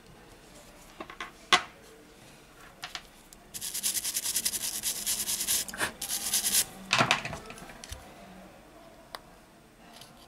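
A pad is scrubbed fast against the plastic display frame of an LG K8 phone for about three seconds, starting a few seconds in. Before and after it there are a few sharp plastic clicks and taps as the frames are handled.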